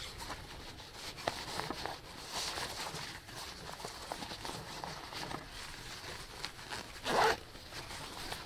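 Helikon Tex Bergen backpack being handled: fabric rustling and scuffing, with many small scratchy clicks as gear is pushed into an inside pocket and the top lid pulled over. There is one louder rasp about seven seconds in.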